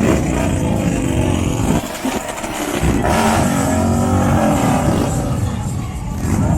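Vehicle engines revving loudly, their pitch rising and falling, with one run-up near the start and another about three seconds in.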